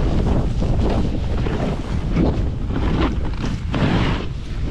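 Heavy wind buffeting the microphone while snowboarding downhill at speed. Over it, a hiss that swells about once a second, as the board's edges scrape across the snow in turns.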